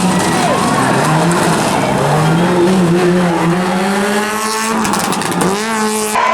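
Rally car engine revving hard through the gears, its note climbing and dropping back several times as it shifts, with a dip and recovery near the end.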